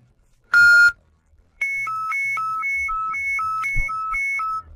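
Icom IC-M506 VHF marine radio: one long beep, the end of the countdown while the distress button is held for three seconds. About a second and a half in, an alternating high-low two-tone alarm follows, about two high-low pairs a second for about three seconds, as the DSC distress alert is transmitted.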